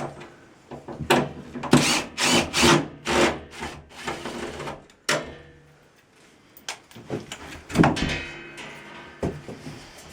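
A run of knocks, clunks and scraping from hardware being handled and fitted into place, busiest in the first few seconds and again near the end.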